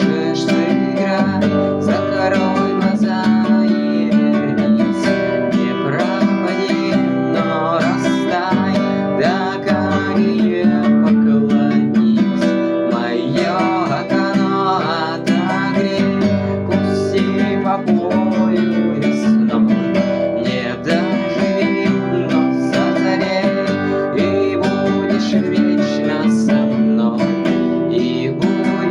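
Acoustic guitar playing steadily, strummed chords with a picked melody over them.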